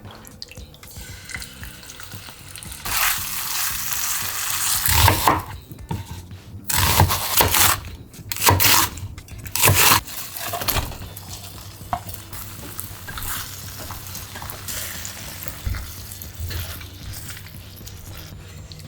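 Food frying in a pan, sizzling, with stirring and utensils against the pan; the loudest, uneven surges come from about three to ten seconds in, then it settles to a quieter steady sizzle.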